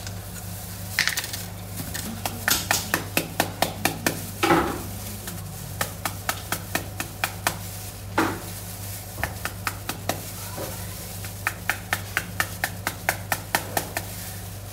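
Halved pomegranate held cut side down over a steel bowl and struck on its back with a knife to knock the seeds loose: three runs of quick sharp taps, about four a second. A steady low electrical hum runs underneath.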